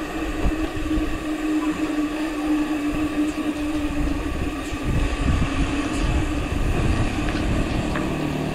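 Wind rumbling on the microphone of a moving bicycle, over a steady droning hum that sags slightly in pitch past the middle.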